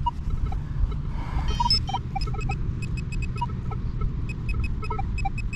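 Wind buffeting the microphone, a steady low rumble, with many short, faint high chirps scattered through it.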